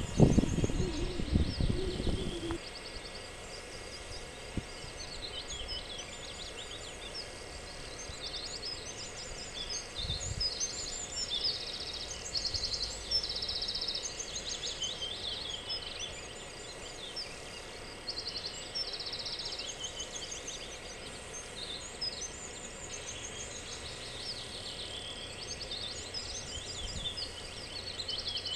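Several birds singing and calling at once, with overlapping high chirps and rapid trills throughout. A low rumble covers roughly the first two seconds.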